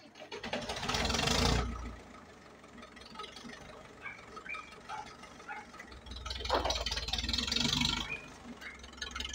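Small tractor engine running slowly with a low, steady rumble as the tractor pulls forward out of a yard. Twice, about a second in and again from six to eight seconds in, a louder rushing swell rises over it for a second or two.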